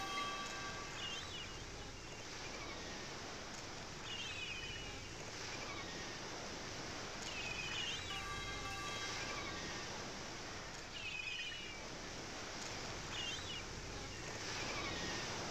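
Steady wash of ocean surf, swelling and easing, with short descending bird calls every two seconds or so and faint held synthesizer tones: the nature soundscape of a relaxation music track.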